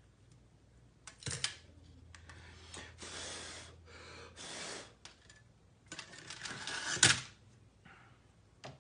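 Handling and tool noise at a soldering bench while solder is added to a feeder joint on a Lionel FasTrack section: scattered clicks and knocks with a few short hisses, the loudest knock about seven seconds in.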